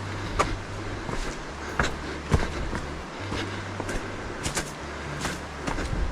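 Footsteps on a rocky hiking trail, seven or so irregular steps and scuffs, over a low hum that cuts in and out.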